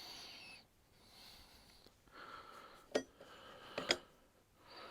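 Close breathing in soft, noisy swells about once a second, with two sharp clicks about three and four seconds in.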